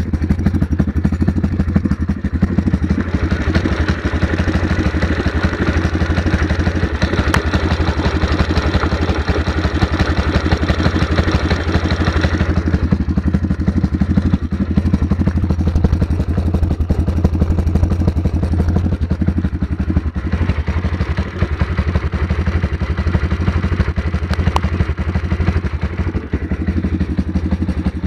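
Single-cylinder four-stroke engine of a 140cc pit bike idling steadily. The pitch stays even throughout, and from about three to twelve seconds in the sound has a brighter, harsher edge that then drops away.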